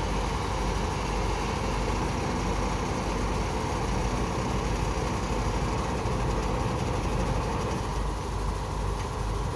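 Truck-mounted crane's diesel engine running steadily as the crane lowers a concrete pile.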